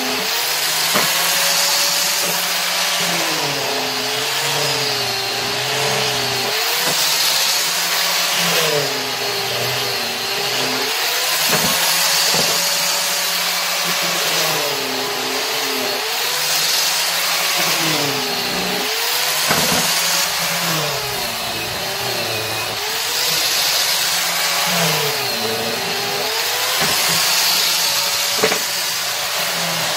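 Electric power tool running continuously through wood, its motor pitch sagging and recovering every few seconds as it loads and unloads in the cut.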